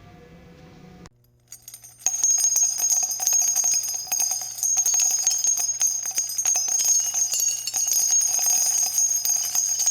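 Music of jingling bells that starts about two seconds in and keeps up a steady, dense shimmer of small ringing clicks.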